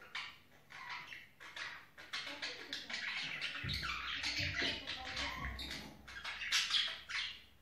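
Budgerigars chattering: a fast, nearly unbroken run of short scratchy chirps and warbles, the chatter of a courting pair. A low rumble joins about halfway through.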